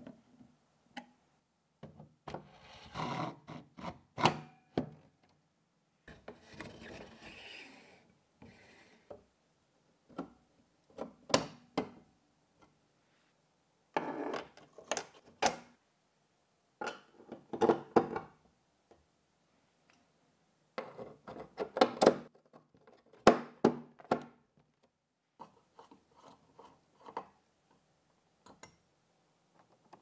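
Handling and screwdriver work on a power supply and its mounting bracket in an open-frame PC case. It comes as intermittent bursts of screw-turning scrapes and rubbing, broken by sharp clicks and taps of metal and plastic parts, with short quiet gaps between.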